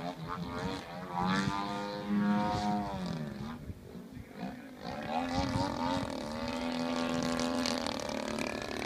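Engine of a Hangar 9 Extra 300 radio-control aerobatic plane running in flight overhead. The tone falls away about three seconds in and dips for a moment, then holds steady for a few seconds near the end.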